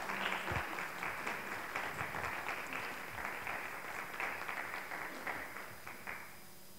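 A small audience applauding, the clapping thinning out and dying away about six seconds in.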